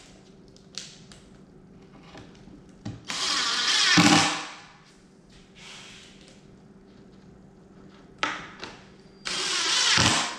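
Cordless drill running in two short bursts of about a second each, one about three seconds in and one near the end, with a few light knocks of handling between them.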